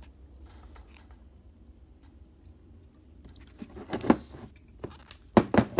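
Handling noises on a workbench: quiet at first, then rustling and light clicks about four seconds in, and a few sharp knocks near the end, as the battery and its wire connectors are handled.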